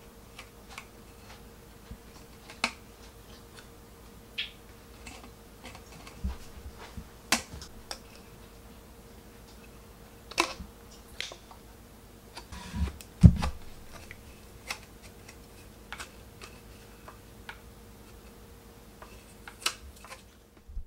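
Scattered light clicks and metallic ticks from a thin rolled titanium stovepipe sheet being handled, with two low knocks about two-thirds of the way in.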